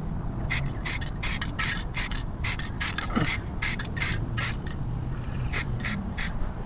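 Aerosol spray can of flat black paint sprayed in short hissing bursts, about three a second, with a brief pause near the end.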